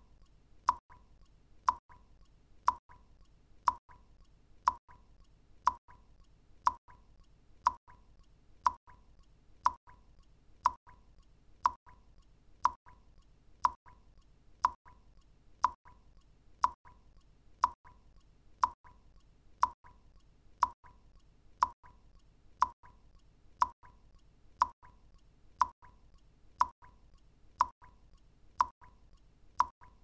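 Single water drops falling into still water, one clear plop about once a second in an even, unchanging rhythm.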